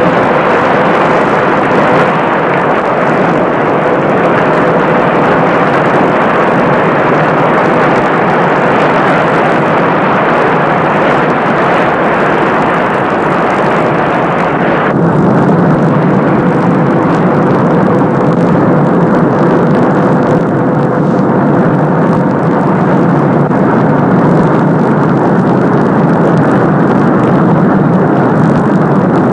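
Steady loud roar of rushing whitewater, with a faint held tone running through it. About halfway through the roar abruptly turns duller and deeper.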